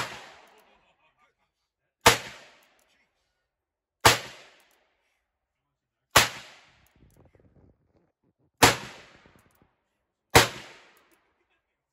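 Long-barrelled stainless revolver firing .357 Magnum, six shots at a steady pace about two seconds apart. Each shot is a sharp crack with a short ringing tail.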